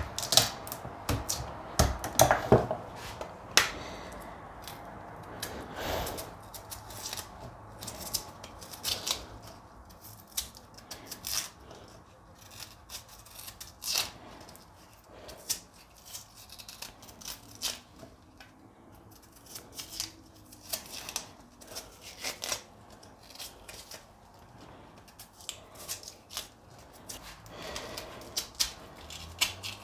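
A knife cutting and prising the thick bark-like peel off raw cassava roots: a run of irregular clicks and short scrapes with brief pauses between strokes.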